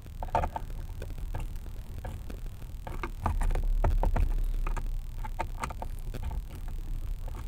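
A Phillips screwdriver being turned by hand to drive screws into the plastic steering column shroud, with scattered small clicks and taps of the tool and plastic trim. A duller low rumble of handling comes in about three seconds in and fades after a couple of seconds.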